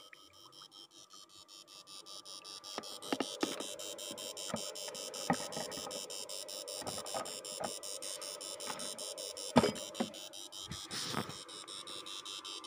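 Battery-powered Yangdong Y800 electrofishing inverter, the battery-saving version, buzzing with a rapid, regular pulse while it powers the net electrode in the water. It grows louder over the first few seconds. Scattered knocks and splashes come from the net pole, the sharpest about ten seconds in.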